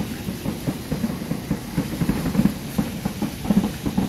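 Rushing spring water, a low, uneven rumble with choppy surges.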